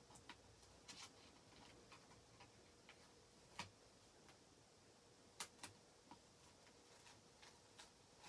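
Near silence with faint, irregular small clicks and taps as thin plastic transfer sheets are handled and pressed against a sign board, a little louder twice in the middle.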